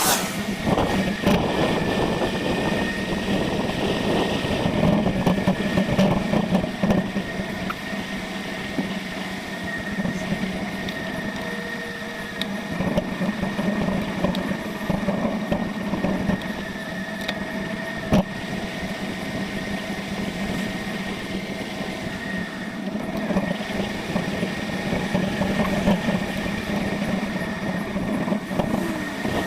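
Riding noise picked up by a camera mounted on a moving bicycle: a rough rumble with small rattles and knocks, under a steady hum.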